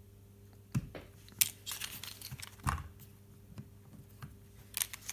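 Several sharp plastic clicks and short rustles of handling: a DJI Mavic Pro drone's quick-release propellers being pushed and twisted off, with a faint steady electrical hum underneath.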